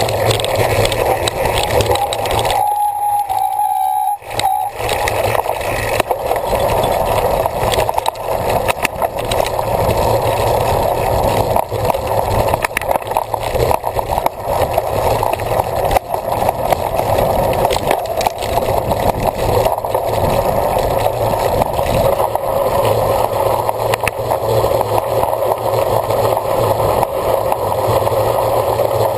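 A cyclocross bike being ridden hard over rough ground: a steady rush of wind and tyre noise with frequent small rattles and clicks from the bike. The noise dips briefly about three seconds in.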